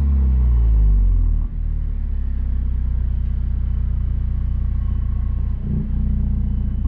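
Volvo V40 T5's 2.0-litre turbo four-cylinder through its aftermarket Polestar exhaust, heard from the tailpipe while parked: the revs drop back from a blip and settle into a steady, deep idle about a second and a half in.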